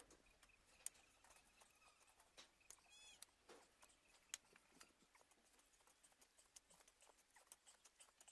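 Near silence, broken by a few faint scattered clicks, the most noticeable about a second in and a little after four seconds.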